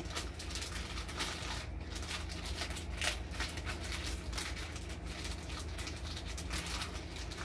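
Plastic poultry shrink bag crinkling and rustling in irregular crackles as hands squeeze the air out around a whole chicken, over a steady low hum.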